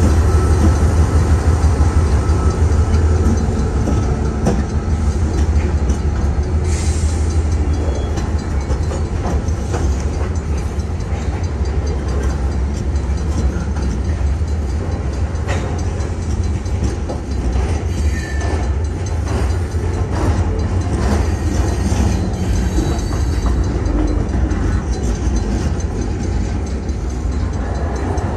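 Freight train of open hopper cars rolling past close by: a steady heavy rumble of steel wheels on rail with scattered clacks and squeaks. It is a little louder for the first few seconds as the end of the diesel locomotive goes by.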